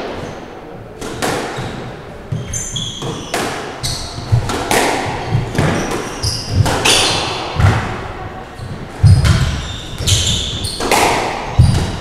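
Squash rally: the ball cracks off rackets and the court walls about once a second, echoing in the enclosed court, with trainers squeaking on the wooden floor between shots.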